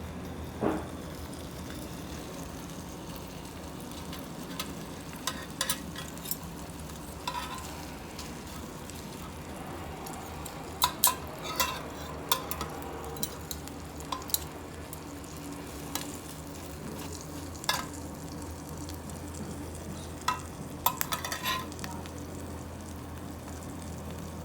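Food frying in a pan with a steady sizzle, and scattered sharp clinks and scrapes of a utensil stirring against the pan, some in quick clusters.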